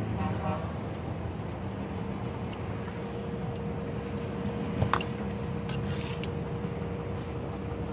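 Steady low background hum with a faint held tone, and a quick pair of light clicks about five seconds in from the hydraulic jack's steel ram and cylinder parts being handled.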